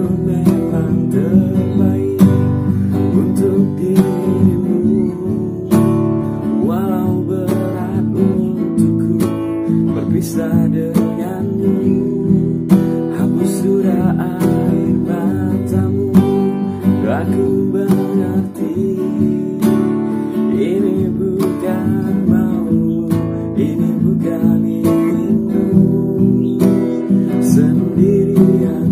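A man singing an Indonesian-language pop song while strumming chords on a steel-string acoustic guitar.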